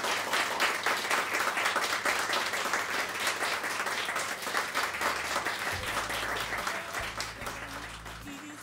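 Audience applauding a choir, the clapping thinning and fading away near the end.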